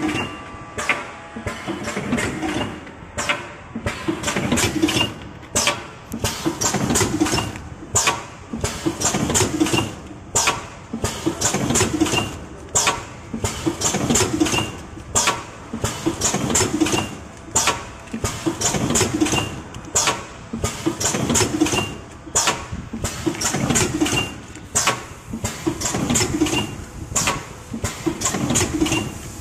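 Automatic sachet packing machine running in steady cycles, with a sharp clack from its pneumatic cylinder about once a second over the continuous mechanical running noise.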